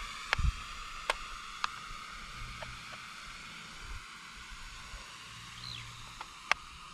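Small toy drone's propellers buzzing steadily in the air, with a few sharp clicks scattered through.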